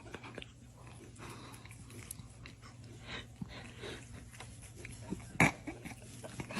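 Faint, scattered noises from a pet, with one short, sharp louder sound about five and a half seconds in.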